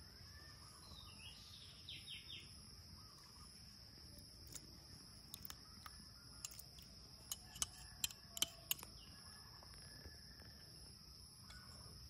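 Faint outdoor background: a steady high-pitched insect drone, a few brief bird chirps in the first couple of seconds, and scattered sharp clicks through the middle.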